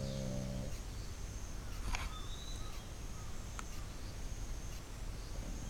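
The last part of a loud snore from a sleeping pet, ending within the first second. Then comes a pause of about five seconds between snores, with only outdoor background: a few short bird-like chirps and a faint steady high tone.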